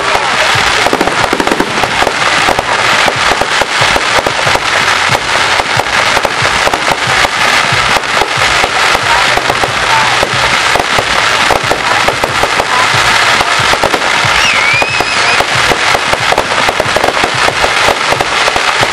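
Aerial fireworks going off in quick succession: a dense, unbroken run of loud crackles and bangs from gold crackling shells.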